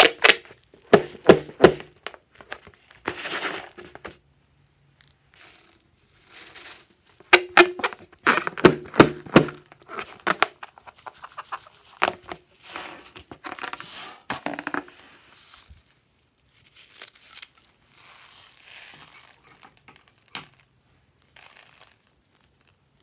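A rubber balloon being squeezed and rubbed in the hands, with irregular squeaks and crinkling, then torn and peeled open near the end.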